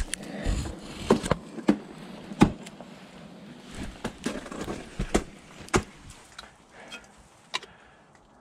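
Ice tool picks striking into water ice: a string of sharp, irregular hits, several close together in the first couple of seconds, then sparser, with scraping and handling noise between them.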